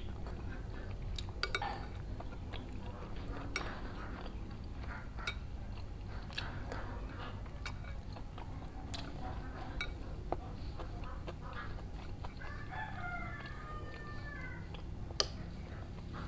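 Eating sounds: chewing, with sharp clicks of a metal spoon and fork against ceramic bowls; the loudest click comes near the end. A rooster crows in the background a few seconds before the end.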